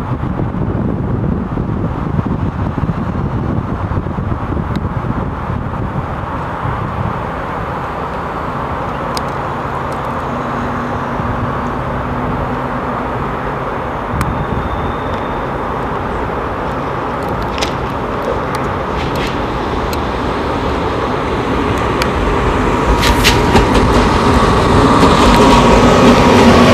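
SNCF CC 6500-class electric locomotive hauling a train of coaches draws nearer over the pointwork, its running noise growing steadily louder. Sharp wheel clicks over rail joints and points come in the last few seconds as it nears the camera.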